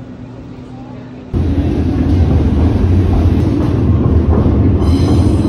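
Train rumbling over a railway viaduct, loud and low, starting suddenly about a second in. Near the end a high, steady squeal of wheels on the rails joins it.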